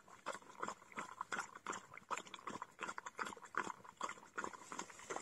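Irish setter feeding from a plastic tub, its mouth making quick, regular sounds about three times a second.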